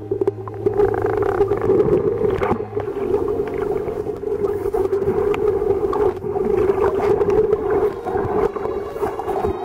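Muffled underwater sound picked up by a submerged waterproof camera: dense water noise with many faint clicks. A steady low hum runs underneath for the first three seconds or so, then stops.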